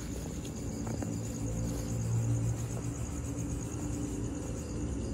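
Night insects chirping steadily in a high, fast-pulsing trill, over a low rumble, with a few faint clicks.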